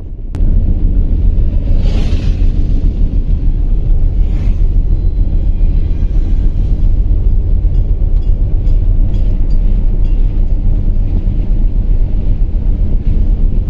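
Loud low rumbling of wind buffeting the microphone, with road noise from a moving car, starting suddenly just after the start and going on unevenly, with brief hissing gusts about two and four and a half seconds in.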